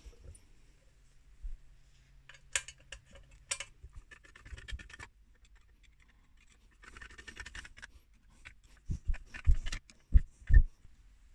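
Hand screwdriver driving small screws into a metal base plate: scattered scratchy clicks and scrapes of the blade and screws against the metal. A few loud, dull knocks come near the end.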